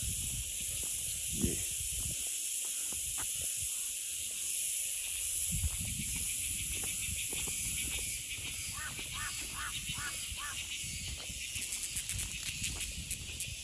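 Steady, high-pitched shrilling of insects in summer forest. A bird calls about five short notes in a row about two-thirds of the way through.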